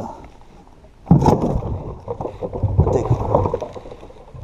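Water splashing in a boat's livewell as a bass is dropped in and thrashes for a couple of seconds, starting about a second in. A short knock at the very end.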